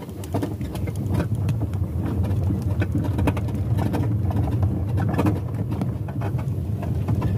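Car engine and tyre noise heard from inside the cabin as the car pulls away and drives along a country road. It is a steady low drone that picks up in the first second, with many light clicks and rattles throughout.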